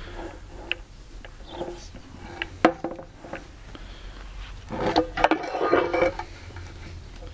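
Gear reducer being turned by hand: light metallic clicks and knocks from the shafts and housing, louder for a second or so about five seconds in.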